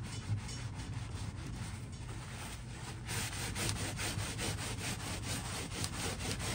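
Paper towel scrubbed back and forth over a tooled leather belt on a wooden workbench, a rapid run of rubbing strokes that gets a little faster and louder about halfway through. It is the hard work of wiping off antique paste that has started to dry on the leather.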